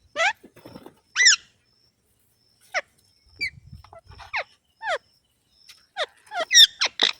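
Pet green parrot giving short, high calls, each a quick downward sweep in pitch, with a pause of about a second near the start and a quick run of calls near the end.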